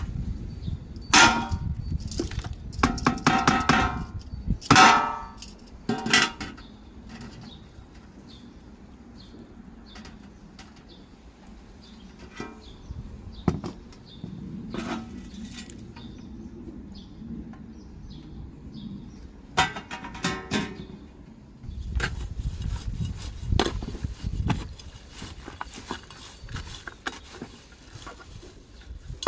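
Kitchen containers and utensils being handled while food scraps are prepared for homemade fertiliser: scattered knocks, clinks and rustling, with louder ringing clangs in the first six seconds and again about twenty seconds in.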